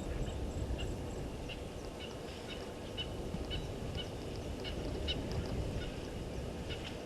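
Bush ambience: a steady low rumble with a bird giving short, high, repeated calls about twice a second.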